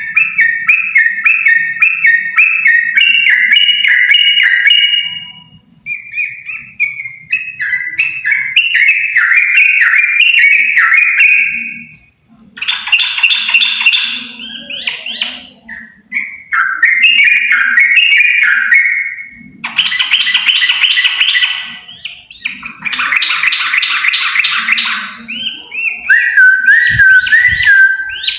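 A pair of yellow-vented bulbuls singing hard: a run of fast, bubbly, warbling phrases, each a few seconds long with short pauses between. Harsher chattering bursts come in several times.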